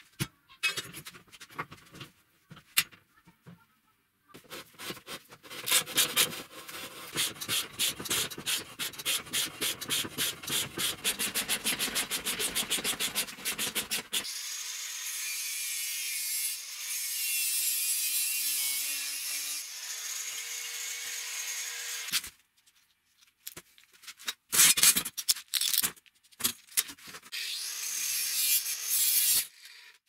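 Rhythmic strokes, about three a second, for about ten seconds. Then a hand-held angle grinder with a cutting disc slices through the steel rim of a washing-machine drum: a steady harsh cutting noise over the motor's hum for about eight seconds, followed by short uneven bursts of cutting near the end.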